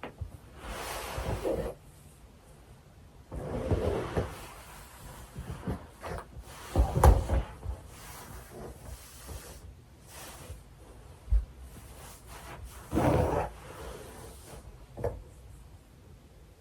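Nylon stockings rubbing and sliding against bedding in several separate swishes, the loudest, about seven seconds in, with a dull thump.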